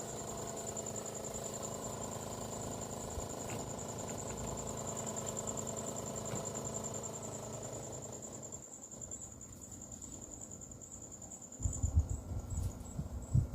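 Outdoor condenser unit of a Samsung WindFree Pro Energy inverter air conditioner running at low speed, a steady hum with several held tones including a high-pitched whine; this is the noise the owner reports from the unit at low speed. It grows quieter about eight seconds in, and near the end a few loud, low thumps break in.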